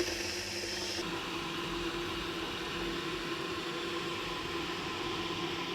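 Steady whirring noise of a running appliance motor or fan, with a constant hum, cutting off abruptly near the end.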